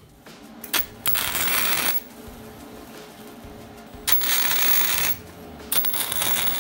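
Wire-feed welder's arc crackling on steel in three short bursts of about a second each, about a second in, about four seconds in and near the end, with a brief crackle just before the first.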